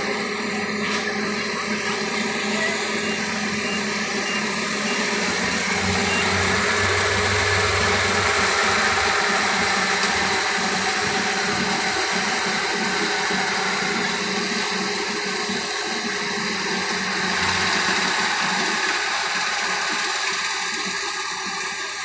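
Tracked rice combine harvester's engine running steadily under load as the machine cuts its way through the paddy.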